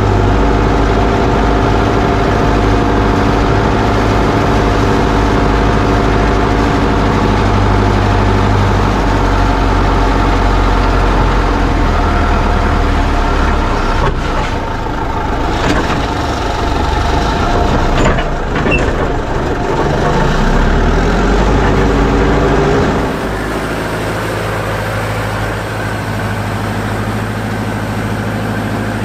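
Fortschritt ZT 300 tractor's four-cylinder diesel running steadily, heard close up from its front snow-plough blade. Partway through, the even engine note turns uneven for several seconds with a few sharp knocks. About three-quarters of the way through it gives way to the steady running of a second tractor, a Fortschritt ZT 323 A.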